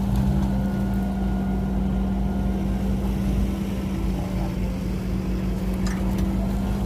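An engine running at a steady, unchanging speed: a constant low hum with a rumble beneath it.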